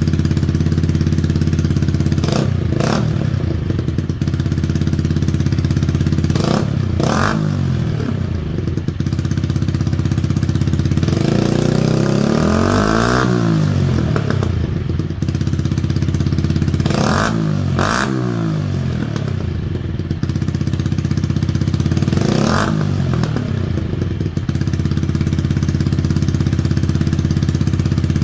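Yamaha YZF-R125's single-cylinder four-stroke engine idling, revved in several quick throttle blips, mostly in pairs, with one longer rev about halfway through that climbs and falls back to idle.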